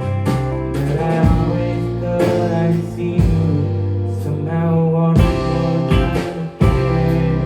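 A live band playing: guitar over a steady bass line, with drum hits.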